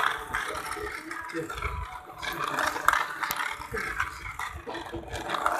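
Battery-powered toy train running around its plastic track, a light mechanical whirring and rattling, with a child's voice heard now and then.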